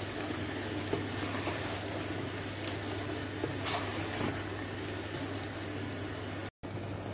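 Chicken in yogurt masala frying and bubbling in an aluminium pot as it is stirred with a wooden spoon, with a few faint scrapes of the spoon against the pot. A steady low hum sits underneath, and the sound drops out for an instant near the end.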